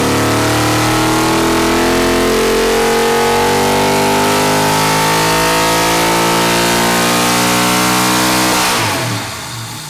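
A 416-cubic-inch LS V8 making a wide-open-throttle pull on an engine dyno, its pitch climbing steadily as it revs from about 4,500 to 7,300 rpm. The pull ends about nine seconds in, when the note drops off sharply as the throttle closes.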